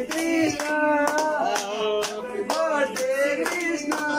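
A group of men singing a song together while clapping their hands steadily in time, about two claps a second.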